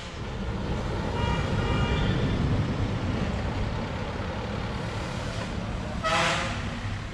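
Roadside traffic sound: a car passing on the road with a steady rumble and tyre noise, then a brief pitched sound near the end.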